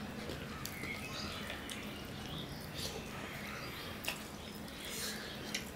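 Faint, soft eating sounds: fingers squishing and mixing rice with fried fish on a plate, with wet chewing and a few scattered small clicks.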